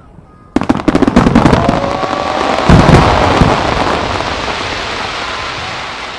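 Fireworks display: a barrage of shells bursting in quick succession, starting suddenly about half a second in with dense cracking. The heaviest bangs come about three seconds in, and the sound then dies away in a long rumbling echo.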